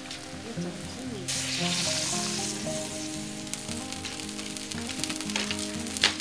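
Large wok of dumplings boiling hard over a wood fire, the water hissing and bubbling steadily, with a louder surge about a second in. A single sharp knock sounds just before the end, under soft background music.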